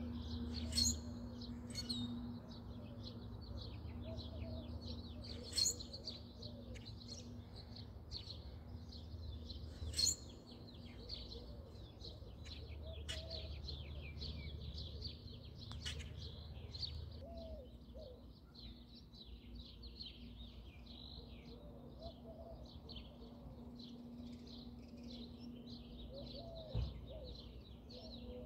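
Many small birds chirping and twittering in a dense morning chorus, with lower, shorter calls now and then, over a steady low hum. Three sharp, louder clicks stand out in the first ten seconds.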